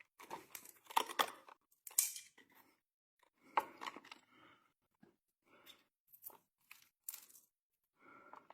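Faint, irregular clicks, scrapes and rustles of hands and tools working on household electrical wiring.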